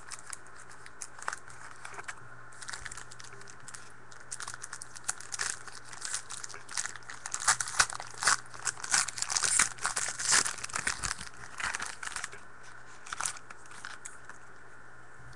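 Crinkling and crackling of a jumbo trading-card pack's wrapper as it is torn open and handled, a quick irregular run of crackles that is busiest in the middle.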